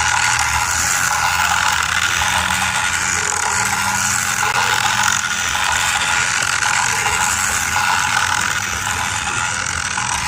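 Motorized Thomas and Friends toy train running along its track, its small motor and gears whirring steadily.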